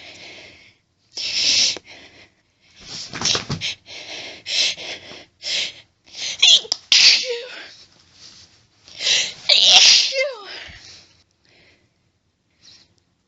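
A woman's sneezing fit as she tries to hold the sneezes back: a run of sharp, hitching breaths and build-ups breaking into sneezes, the two loudest bursts about halfway and three quarters of the way through, with only faint hitches near the end.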